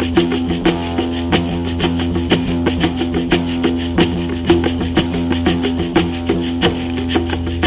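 Meditative live music: a steady low drone of held tones under a quick, even run of light percussion strokes.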